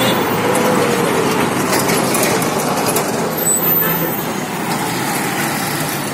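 Steady, loud road traffic: vehicle engines and tyres passing close by.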